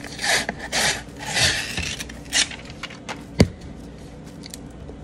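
Paper wrapper being peeled and torn off a cardboard tube of refrigerated biscuit dough, in several rustling bursts, with a single sharp crack about three and a half seconds in.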